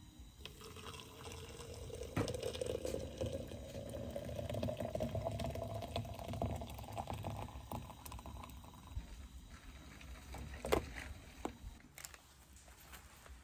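Liquid pours steadily into a cup for coffee, its pitch rising as the cup fills. A sharp clack comes near the end.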